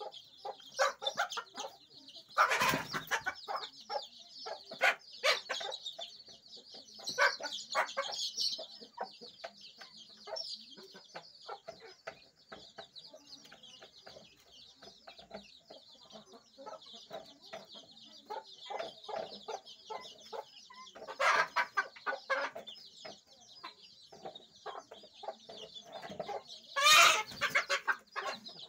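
Mother hen clucking repeatedly to her brood over the continuous high peeping of many chicks. A few louder bursts stand out, about a tenth of the way in, about three-quarters of the way in and near the end.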